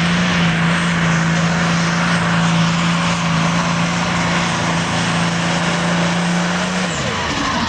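Turbocharged diesel engine of a super stock or pro stock pulling tractor running flat out under load as it drags the pull sled, a loud steady drone. The engine note falls off about seven seconds in.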